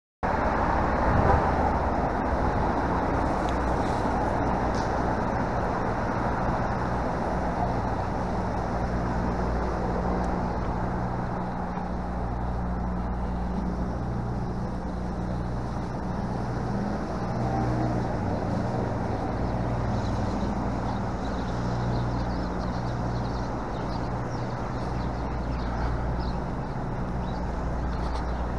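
City street traffic at an intersection: a steady rumble of passing and idling cars, with a low engine hum that comes and goes.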